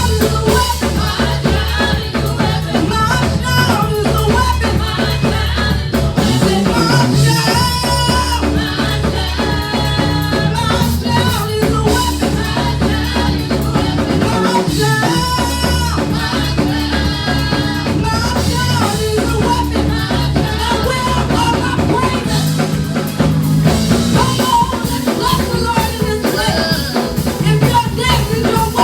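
Worship band music with a full drum kit keeping a steady beat under bass and a melody line.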